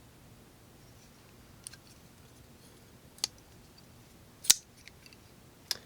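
Sharp metallic clicks of a CJRB Barranca linerlock folding knife being handled: four clicks about a second or more apart, the loudest about four and a half seconds in.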